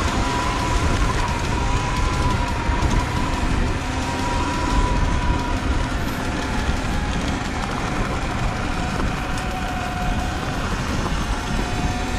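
Sur-Ron electric dirt bike being ridden: a thin motor whine that drifts slowly in pitch, over a heavy rumble of wind on the microphone.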